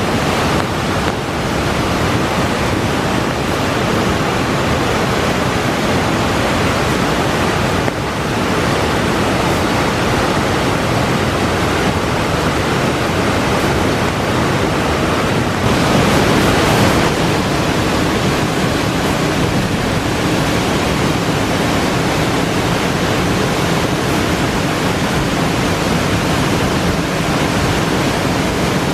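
Water of the Minoo River and Minoo Falls in spate after a typhoon, rushing as a steady loud wash of noise. It swells a little louder for about a second around sixteen seconds in.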